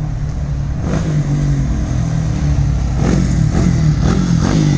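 Single-cylinder motorcycle with a stainless 969 Xtreme aftermarket exhaust running on the road, its exhaust note rising and falling with the throttle several times in the last couple of seconds.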